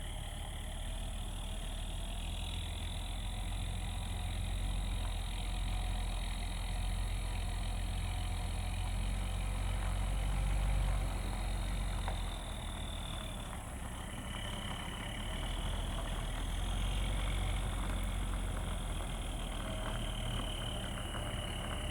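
Well-drilling rig truck's engine running steadily, with a high whine that wavers in pitch and a level that swells and eases a little.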